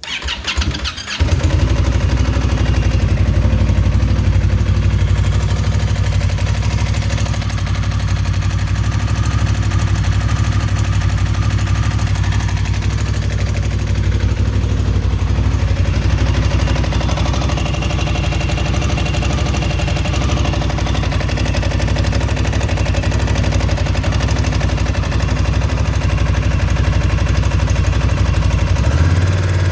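Indian Scout motorcycle's V-twin engine cranking and catching in the first second or so, then idling steadily with a knocking noise. The idle changes pitch near the end.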